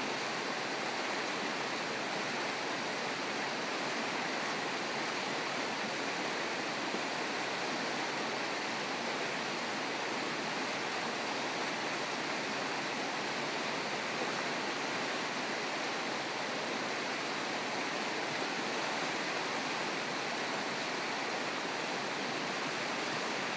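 Shallow, rocky river rushing over stones in a steady, unbroken rush of water.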